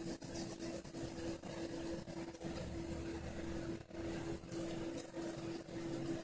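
A steady machine hum at one pitch, under faint rubbing and small handling clicks as a rubber pump seal is twisted on a pen tip to ream out its inner diameter.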